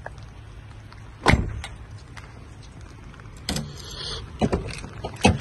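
A two-door Lincoln's door shut with a loud thump about a second in, followed by a brief whirr and a few more knocks and clicks of the door.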